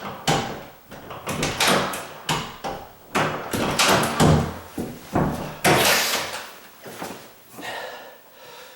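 A door and its latch being worked against the strike plate: a rapid, irregular series of knocks and clicks, with a louder rattle about six seconds in. The latch bolt is catching on a strike plate that doesn't line up with it.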